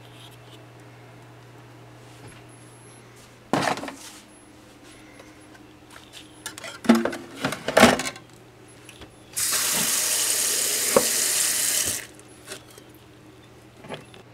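A few knocks and clatters of a pan against dishes in a metal kitchen sink, then the tap turned on and running for about three seconds before it is shut off.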